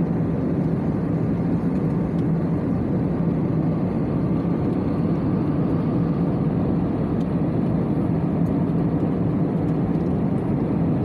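Steady cabin noise of a twin-engine jet airliner in cruise: jet engines and air rushing past the fuselage, an even low noise with no change.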